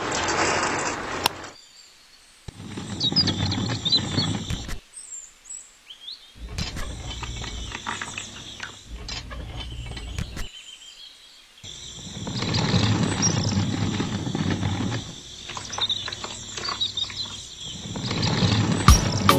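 Small electric motor of a miniature concrete mixer running, its drum turning with wet concrete inside, heard in several short clips separated by brief silent gaps, with high chirps now and then.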